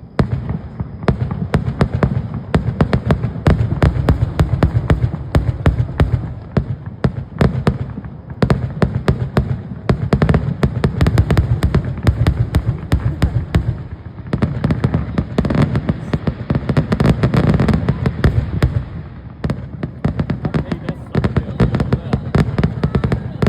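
Fireworks going off in a dense, continuous barrage of rapid cracks and bangs, surging and easing every few seconds.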